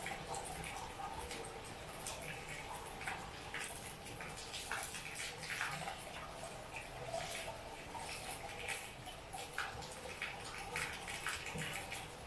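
Rain falling steadily, with many irregular drips and splashes close by.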